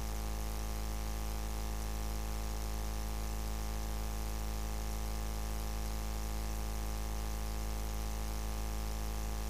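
Steady electrical mains hum and buzz on the audio line, unchanging throughout, with no other sound.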